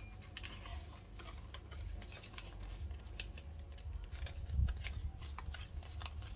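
Scored cardstock being folded and handled by hand: light crackles and rustles of stiff paper, with a soft low thump about four and a half seconds in.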